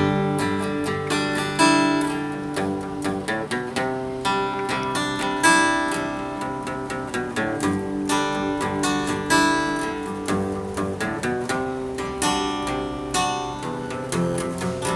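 Acoustic guitar played solo, its chords strummed and left to ring, with a new chord struck every second or two.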